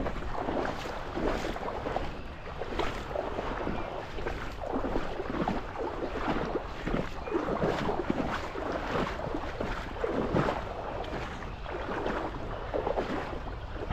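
River water splashing and sloshing in irregular bursts, over a steady rumble of wind on the microphone.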